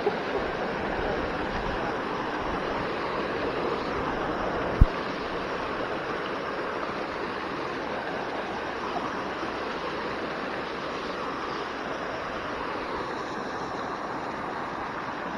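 Steady rush of running water, with one sharp knock about five seconds in.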